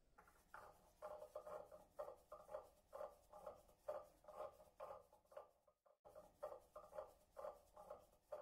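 Wooden hand churner spun back and forth between the palms in a ceramic cup of thick curd, its head scraping against the cup in a quiet, even rhythm of two to three strokes a second, with a short break about six seconds in.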